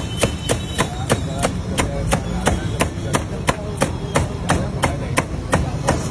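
Steady rhythmic knocking, about three sharp knocks a second, over low street noise.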